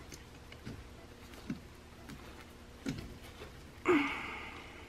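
Small, faint clicks and taps of steel parts as a 1911A1 pistol frame is handled and its internal parts are worked into place against spring pressure. A short, breathy vocal sound, like a grunt of effort, comes about four seconds in and is the loudest thing.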